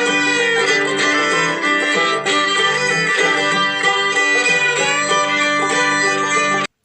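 Background music, an upbeat country tune with plucked banjo or guitar and fiddle, cutting off abruptly near the end.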